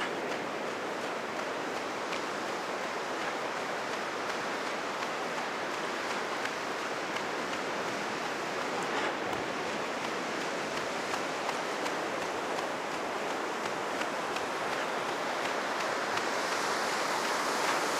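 Steady wash of high surf breaking on a sandy beach, swollen by a typhoon's passing, growing slightly louder near the end.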